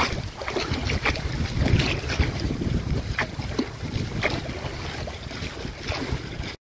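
Choppy lake water lapping and splashing in small waves, with irregular sharper splashes. Wind rumbles on the microphone underneath.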